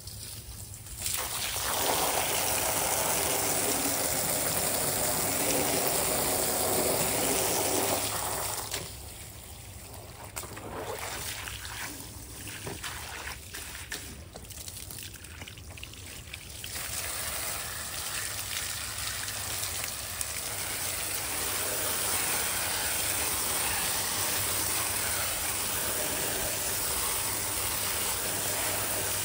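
Water from a garden hose running over a pleated pool filter cartridge and splashing onto concrete. The flow is strong for the first several seconds, drops off for a while, then runs steady again.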